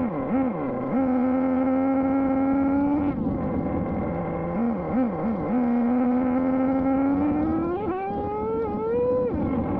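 Traxxas Jato 3.3's small two-stroke nitro engine revving in quick throttle blips, then holding a steady high-pitched run. It blips again a few times about four to five seconds in, and near the end climbs sharply in pitch as it accelerates, then drops off.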